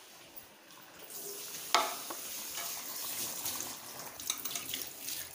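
Chicken and masala frying in a metal pot, sizzling and crackling from about a second in, while being stirred with a metal slotted spoon. One sharp knock of metal on the pot comes just after the sizzle starts.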